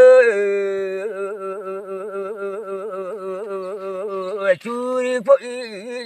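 A man singing a traditional Kaubru folk song unaccompanied: one long held note with a quick, even wavering of about five ripples a second, breaking into shorter sung syllables near the end.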